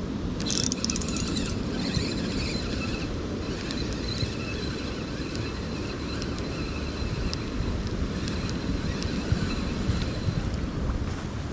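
Wind buffeting the microphone over the steady rush of a swollen river. About half a second in there is a quick run of sharp clicks, and a thin, high, steady whine runs underneath for most of the time.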